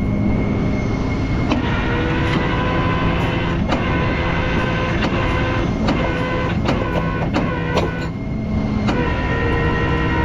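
Tow truck engine running with its hydraulic system whining under load as the rig is worked, dipping briefly about eight seconds in before picking up again. Several sharp metallic clicks and clanks come through it.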